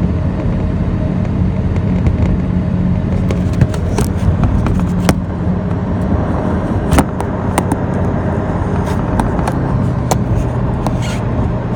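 Old truck driving, heard from inside the cab: a steady low engine hum with road noise, and scattered knocks and rattles throughout.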